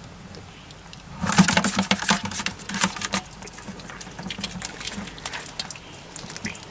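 Rapid scrabbling and clicking from a baby squirrel scrambling about while it is handled. It starts loud about a second in and thins to scattered clicks after a couple of seconds.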